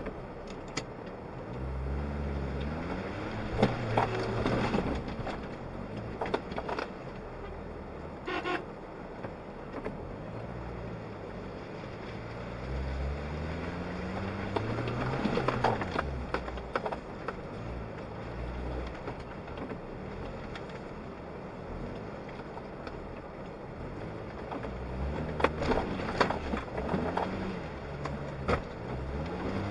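Suzuki Jimny engine heard from inside the cabin, its revs climbing and dropping again and again as it drives off-road, with scattered knocks and rattles from the body over rough ground.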